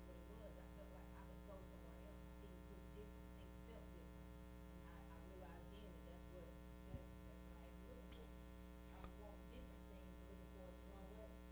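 Near silence: a steady electrical mains hum, with faint distant voices and a soft click about seven seconds in.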